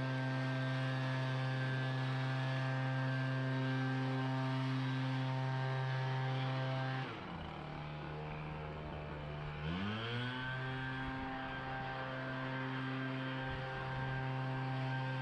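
Small gas engine of a leaf blower running at a steady high speed, throttled down about halfway through and then revved back up to full speed a few seconds later.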